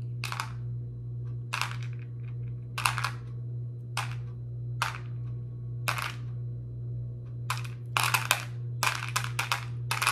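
Small dried seeds clicking against a bowl as they are picked out by hand: sharp single clicks about once a second, coming quicker near the end, over a steady low hum.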